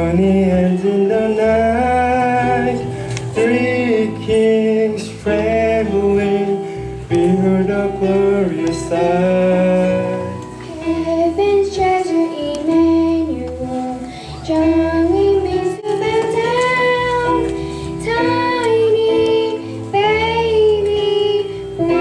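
Children's choir singing a song together, over steady instrumental accompaniment.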